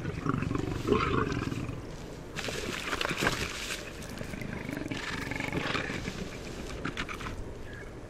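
Big cats growling in several harsh bursts, a lioness up a tree confronting a leopard above her.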